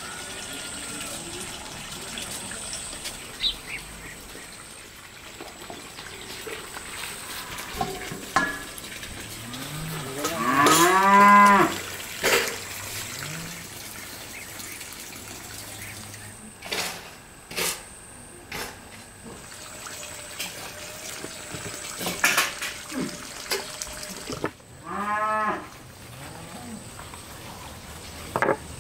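A cow mooing twice: a long moo about ten seconds in, the loudest sound, and a shorter one near the end, with a few sharp knocks in between.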